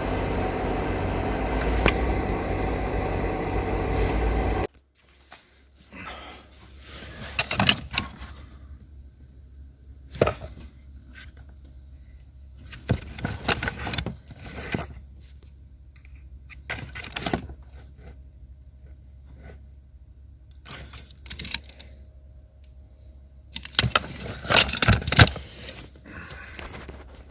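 A car engine running steadily, cut off abruptly about four and a half seconds in. After that, scattered clicks, rattles and scrapes of something being handled, with the loudest clusters near the middle and near the end.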